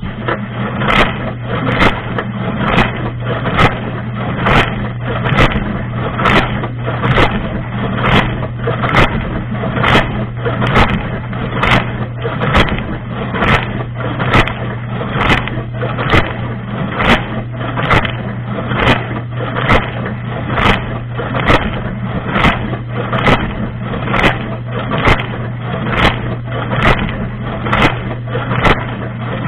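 Dishwasher wash cycle heard from inside the tub: the wash pump's steady hum under spraying water, with a sharp slap of water about once a second as the rotating spray arm's jet sweeps past. It starts abruptly and cuts off suddenly at the end.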